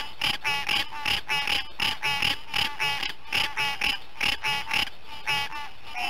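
Green tree frog calling: short, harsh calls repeated about three to four times a second, over a steady faint tone.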